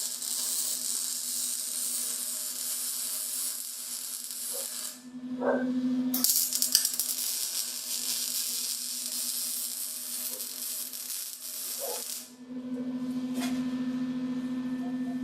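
MIG welder arc crackling and hissing as steel is welded, in two runs of about six seconds each separated by a short pause. A steady hum fills the gap between the runs and the end.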